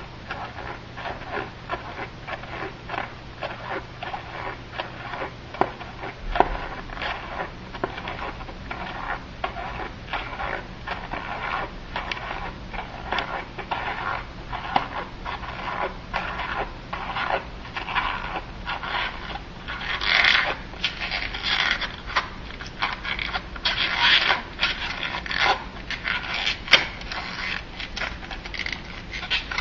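Rubber balloon being handled and rubbed, a rapid run of short scraping squeaks, several a second, growing louder about two-thirds of the way through.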